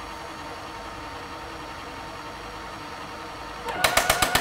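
Electric camper jack motor running steadily as the leg retracts, then near the end a rapid run of loud clicks as the jack bottoms out, the gears knocking at its end of travel: a sign of running it too far and putting extra wear on the jack.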